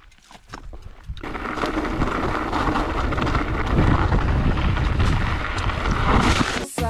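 Mountain bike descending a rocky trail: wind rumbling on the action camera's microphone mixed with the tyres and bike rattling over stones, getting loud about a second in.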